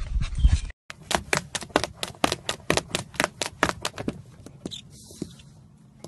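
Opens with a brief loud low rumble and thump that cuts off. Then a puppy's claws scrabble against the wall of a clear plastic tub: a quick run of sharp scratching clicks, about four or five a second, thinning out after about four seconds.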